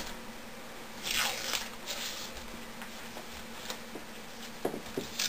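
Handling noises from a LiPo battery pack being taken apart by hand: a brief rasping scrape about a second in, then quieter scuffs and a few light clicks near the end.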